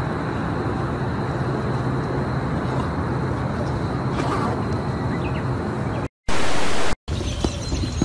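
Steady wind noise buffeting the microphone, strong in the low rumble. About six seconds in it cuts out around a brief burst of loud hiss. Then come light taps of footsteps on a metal bridge deck.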